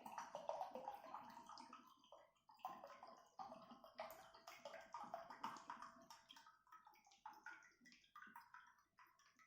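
Water being poured, a faint, uneven trickling and splashing.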